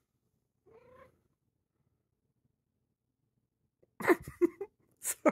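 Domestic cat making one faint short meow about a second in, then a quick string of short, louder meows near the end.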